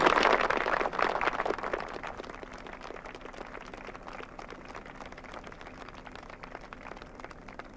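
Applause by a crowd and soldiers, loud at first and dying away over the first two seconds to fainter, scattered clapping.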